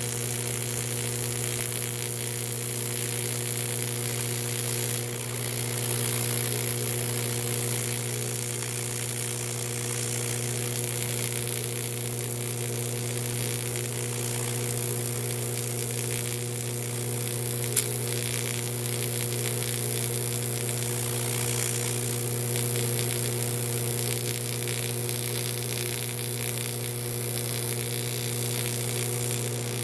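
Lincoln TIG welder's AC arc on aluminum, a steady electric buzz with a hiss over it as filler rod is fed into the weld puddle. One brief sharp click about two-thirds of the way through.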